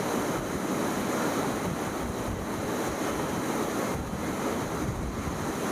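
Strong wind buffeting the microphone on the open deck of a cruise ship, over a steady rush of lake waves.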